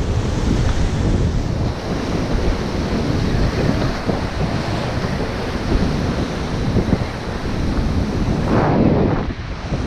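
Ocean waves surging and breaking against the boulders of a rock jetty, with wind buffeting the microphone; a bigger wave washes in near the end.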